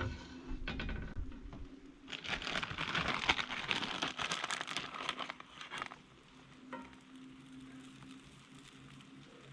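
Kitchen handling sounds during cooking: crinkling and light clattering, loudest from about two to six seconds, over a steady low hum.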